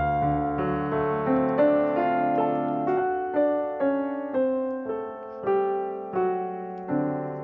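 Background piano music: a slow, gentle melody of single notes, each struck and left to fade.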